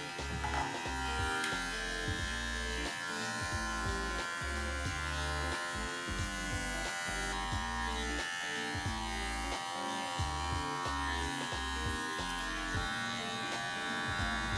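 Cordless electric dog clippers buzzing steadily while trimming a poodle's coat, with background music underneath.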